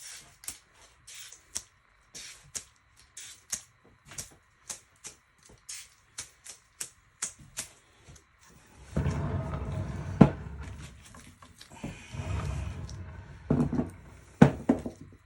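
Short, sharp hissing spurts, roughly two a second, typical of a spray paint can being dabbed onto the art. About nine seconds in, a louder rushing noise with a few sharp knocks takes over.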